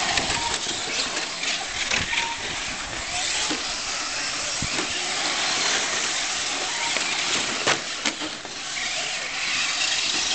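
Electric radio-controlled short-course trucks running on a carpet track: a steady high hiss and whine of motors and tyres, with two sharp knocks about three-quarters of the way through.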